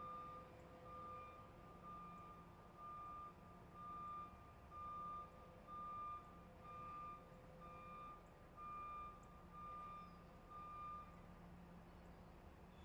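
Truck reversing alarm beeping about once a second, one steady high tone repeated, over a low steady hum; the beeps stop shortly before the end.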